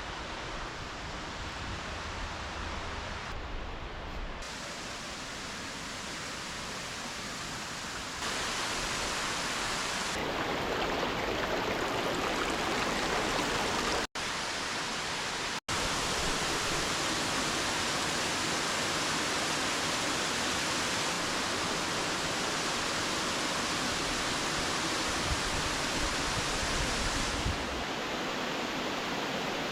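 Water rushing steadily over small waterfalls and dams on a creek, a continuous even roar that jumps in loudness at several cuts and drops out twice in the middle for a moment.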